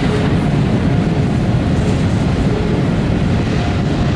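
Double-stack intermodal well cars of a freight train rolling past, a steady rumble of steel wheels on rail.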